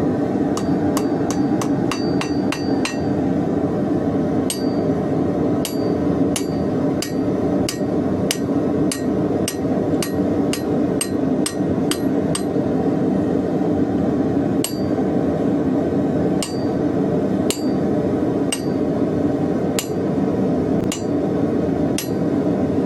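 Hand hammer striking hot 16 mm square steel bar on an anvil while the wings are forged: a quick run of blows in the first few seconds, then about one blow a second, many of them with a high metallic ring. A steady low rushing noise runs underneath.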